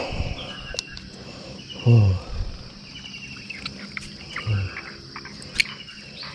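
Crickets and other night insects chirping: a steady high trill with rows of shorter repeated chirps below it. A short, low, falling pitched sound, the loudest thing here, comes about two seconds in and again about four and a half seconds in, and there are scattered small clicks.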